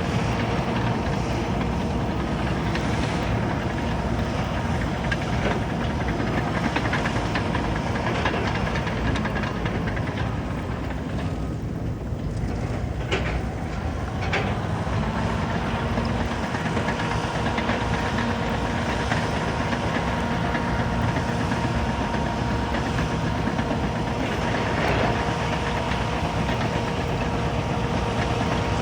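Caterpillar bulldozer's diesel engine running steadily, with a steady whine over it and its steel tracks clattering, plus a couple of sharp metallic clanks about halfway through.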